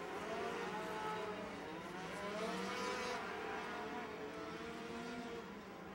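Racing sport trucks' engines running as the trucks pass one after another; around the middle one truck's engine pitch rises and then falls as it goes by.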